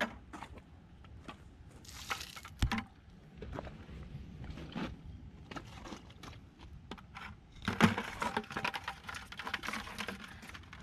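Scattered light clicks, taps and scrapes from a white plastic bucket being handled by its wire handle, with one sharper knock a little after two and a half seconds in. Over the last three seconds the clicking and rattling becomes dense and continuous.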